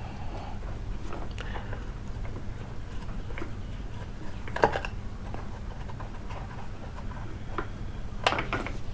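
Small scattered metal clicks and ticks of a screwdriver working the old screws out of a water pressure pump's top cover, with a sharper click about halfway through and a few more near the end.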